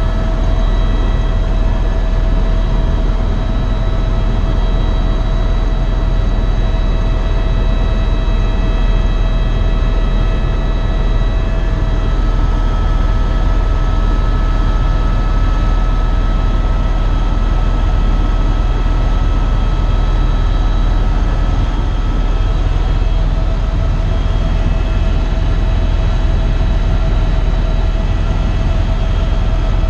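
Eurocopter EC130 EcoStar helicopter in flight, heard from inside the cabin: a steady, loud low rumble from the rotors and turbine, with a constant high whine from the turbine and gearbox over it.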